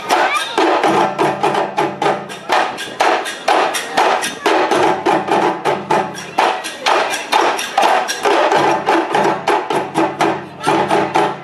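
Djembe drumming ensemble playing a fast, dense rhythm of hand strikes on the drum heads.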